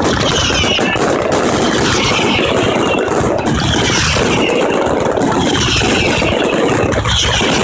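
Bolognese-style ground fireworks battery going off: a dense, continuous crackle of rapid small explosions from fountains and crackling stars, with wavering whistles rising and falling every second or so.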